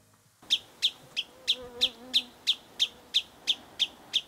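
Wood sandpiper calling from a perch: a repeated alarm call of sharp, down-slurred 'chip' notes, about three a second, starting about half a second in.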